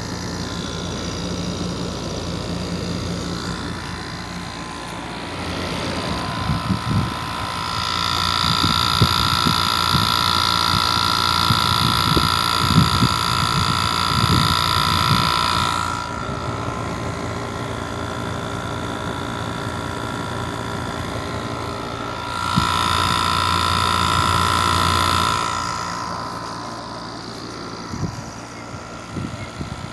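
Outdoor unit of an older Kenmore heating and air-conditioning system running, a steady whirring hum with a few held tones. The hum grows louder twice, for about eight seconds after the first quarter and for about three seconds later on, then falls back.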